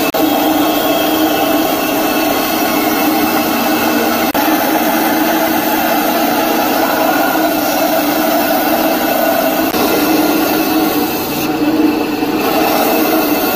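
Bench power saw with a narrow blade running steadily and cutting through a hardwood block.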